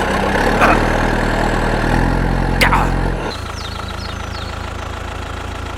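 Engine idling steadily with a low, even hum, dropping to a quieter idle a little past three seconds in; a single sharp click comes just before the drop.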